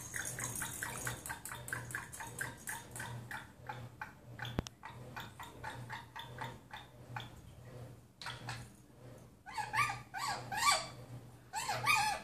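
Rainbow lorikeet making rhythmic sounds: a quick, even run of short clicking chirps, a single sharp click about halfway, then bursts of short rising-and-falling chirps near the end.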